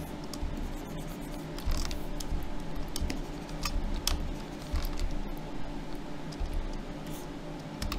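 Scattered light clicks and scratches from computer input on a desk, over a steady low hum.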